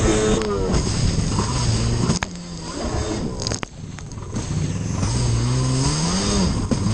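Racing stand-up jet ski's two-stroke engine revving hard, its pitch rising and falling over the chop. About two seconds in it drops away for roughly two seconds amid a few sharp slaps and spray. Then it revs back up.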